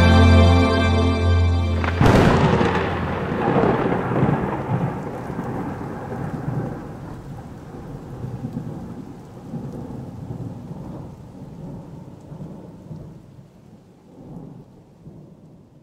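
Background music cuts off about two seconds in and a thunder sound effect takes over: a long, dense rumble that slowly fades away.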